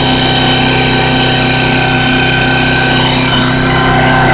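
Homemade water well drill rig's hydraulic system running steadily, a constant loud machine hum with several steady whining tones. The drill's hydraulic motor is being driven through an adjustable flow control valve that sets its speed.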